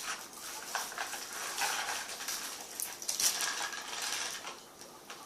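Snacks and their packaging being handled: irregular rustling with light clicks and clinks, busier in the middle and fading near the end.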